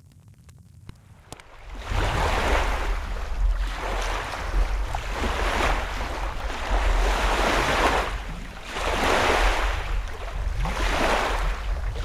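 Faint wood fire crackling in a fireplace with a few sharp pops. About two seconds in, loud ocean water sound comes in abruptly, surging in swells roughly every two seconds over a deep rumble.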